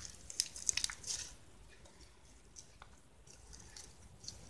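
Sticky fluffy slime squishing and clicking as it is kneaded and stretched by hand, working in added powder: a quick run of small wet clicks in the first second, then quieter squelching.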